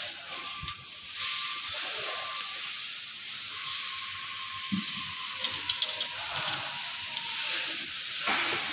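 Steady hiss in the background, with a few light metallic clicks and taps from hand tools (feeler gauge, socket and spanner) on a valve rocker adjuster of the stopped engine, mostly around the middle.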